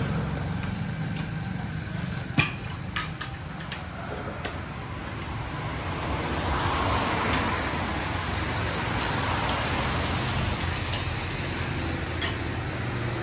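Road traffic on a wet street under a steady low engine hum. A passing vehicle's hiss swells and fades in the middle. A few sharp knocks and clicks sound, the loudest about two and a half seconds in.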